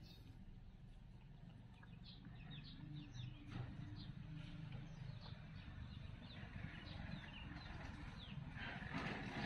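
Birds chirping: many short, quick chirps that fall in pitch, several a second, over a low steady rumble.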